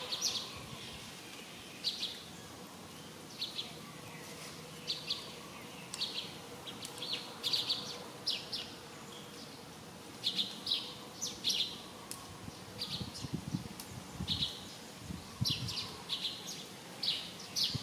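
Small birds chirping: short, high, down-sliding chirps repeating every half second to a second, with a few soft low thumps and rustles from about two-thirds of the way in.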